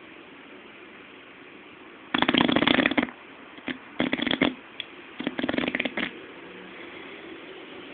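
Bulldog snoring in its sleep: three loud, rattling snorts in quick succession, the first about two seconds in and each lasting under a second, with quiet breathing between them.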